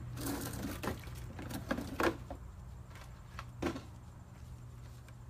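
Small household items being handled and set down: a few separate knocks and clatters with some rustling, over a steady low hum.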